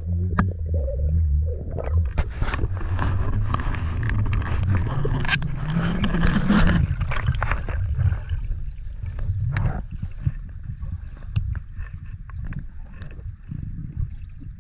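Underwater rumble and gurgling of water moving around the camera, with scattered clicks and knocks. It is loudest in the first half and grows quieter after about eight seconds.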